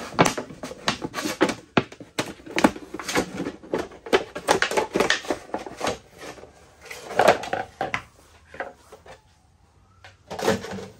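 A plastic milk jug being stabbed and cut with a Protech TR3-MC1 knife: a dense run of sharp clicks, knocks and crackles of the plastic, thinning out about nine seconds in, with one more short cluster of knocks near the end.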